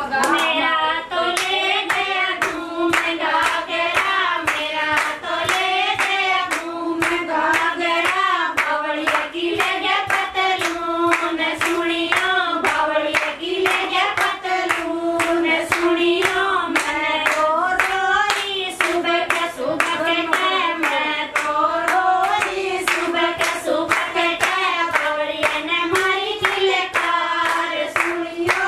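Women singing a traditional Haryanvi folk song together, keeping the beat with steady hand-clapping at about two to three claps a second.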